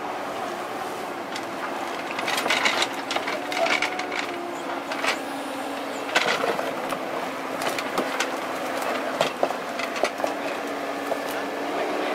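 Kubota KX91-3 mini excavator's diesel engine running steadily, with irregular scraping and sharp clicks from digging, heaviest about two to four seconds in and again around six seconds.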